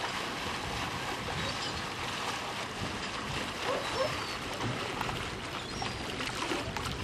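Jeanneau motor fishing boat running slowly in, its engine blended into a steady wash of water and wind noise, with a few faint high chirps over it.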